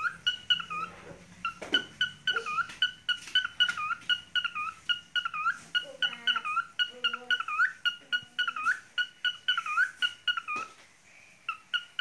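Cockatiel chirping in a steady run of short, bent notes, several a second, with a brief break near the end.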